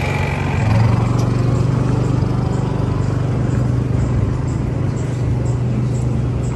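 An engine running steadily with a loud, low hum that grows a little louder just under a second in, with a faint high ticking about twice a second over it.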